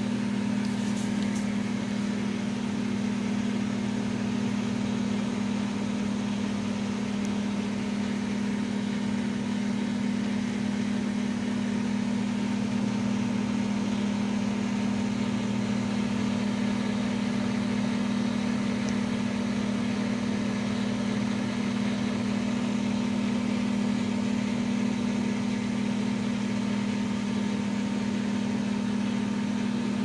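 Multiple Choice microwave oven running: a steady low hum with an even rushing noise over it.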